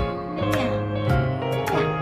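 Background music: a gentle track with plucked guitar over a steady beat.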